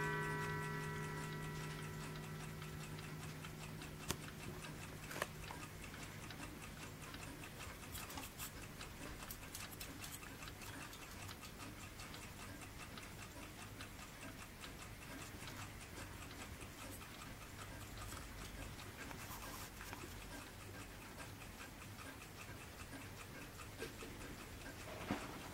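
French Boulle mantel clock ticking steadily, with the ring of its last strike dying away over the first few seconds. Two sharper clicks stand out about four and five seconds in.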